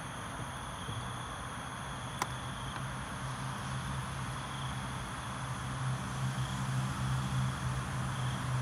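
Night ambience of steady insect calls, one of them swelling gently about every two seconds, over a low steady hum that grows louder in the second half. A single sharp click about two seconds in.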